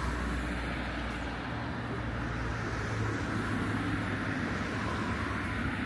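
A motor vehicle's engine running close by over steady traffic noise; its low hum rises in pitch about a second and a half in.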